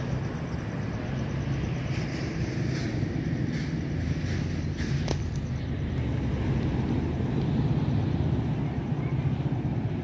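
Beach ambience: a steady low rumble of wind and distant surf, with a few faint ticks.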